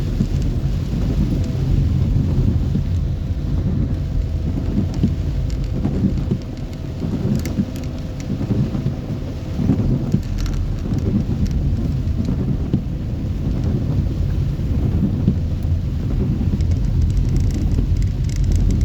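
Heavy tropical downpour falling steadily, with a continuous low rumble underneath and scattered sharp drop ticks.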